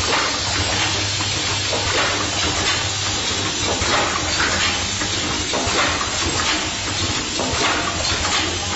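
Hairpin assembly machine running: a steady hiss and low hum with frequent metallic clinks and clatters as the parts are handled.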